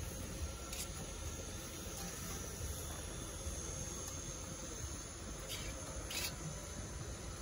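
Crickets chirping steadily, with a few brief scraping knocks from an aluminium cooking pot being handled on a wood-fired stove: one about a second in and two close together near the end.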